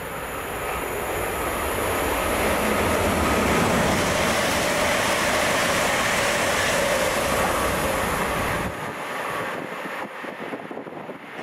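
Class 720 Aventra electric multiple unit passing through at speed: a rushing rumble of wheels on rail that swells over the first few seconds and carries a faint steady whine, then cuts off sharply near the end, leaving a fainter rumble.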